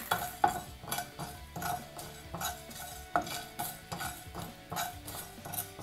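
A wooden spatula stirring and scraping whole spices around a dry kadai as they are roasted without oil. The strokes come about two or three a second, and each knock sets the pan ringing briefly.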